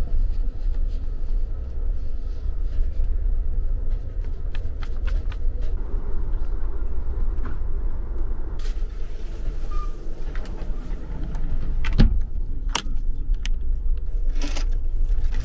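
Steady low rumble inside an Amtrak Superliner sleeper car as the train runs, with scattered light clicks and rattles and one sharp knock about twelve seconds in.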